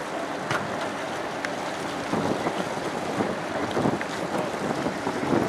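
Wind buffeting the microphone over a tug's engine running steadily and river water, getting gustier from about two seconds in, with a few light knocks.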